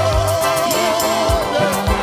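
Live African gospel song with a band: a lead voice holds one long wavering note over bass notes and a regular drum beat.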